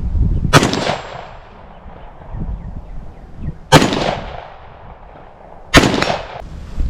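Three AR-15 rifle shots in 5.56, about three seconds and then two seconds apart. Each ends in a trailing echo.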